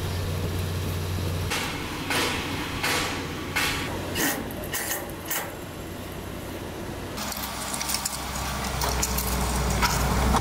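Construction-site work sounds: a low engine hum, then a run of about seven quick scraping strokes, then scattered light metal clinks and rattles as the engine hum comes back near the end.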